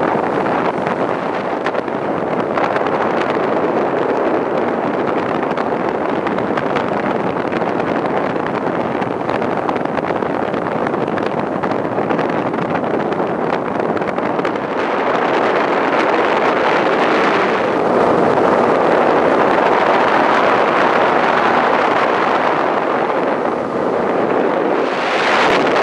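Wind rushing over the microphone on a moving motorboat, with the motor running underneath; the noise grows a little louder about halfway through.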